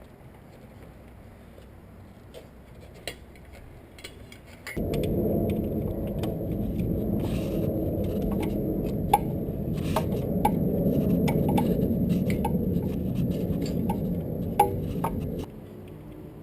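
A small motor, most likely a power tool, runs steadily for about ten seconds, starting and stopping abruptly, with light metallic clicks over it. Before it starts there are only faint scattered clicks of tool handling.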